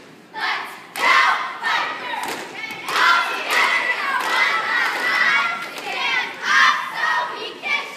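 Cheerleading squad of teenage girls shouting a cheer in unison in short phrases, with thuds in between.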